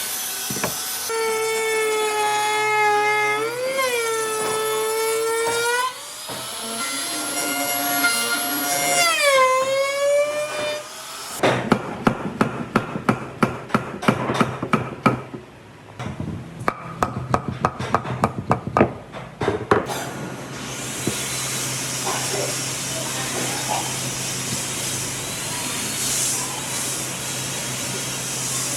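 A power tool's motor whining, holding its pitch and then sliding up and down as it is loaded, followed by a run of sharp knocks on wood at about three a second and then a steady hiss.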